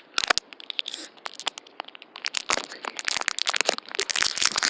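Plastic snack wrapper being crinkled and torn open, a dense run of irregular crackles.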